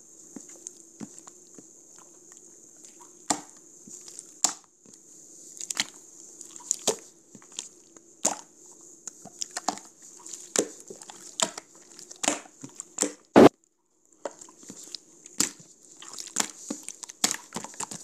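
Irregular sharp taps and clicks, spaced unevenly, over a steady hiss and low hum. About thirteen seconds in comes one louder crackle, then the sound cuts out for about half a second.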